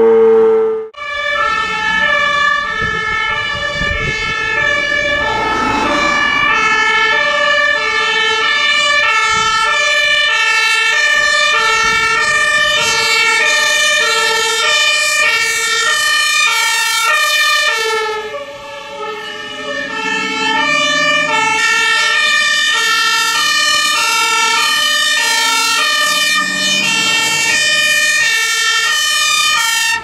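The E-57 rooftop electric siren sounds a steady tone for under a second, then cuts off. Then fire engines pass with their two-tone sirens (Martinshorn) alternating high and low about every 0.6 s, over engine noise. The sirens dip briefly about halfway through as one vehicle gives way to the next.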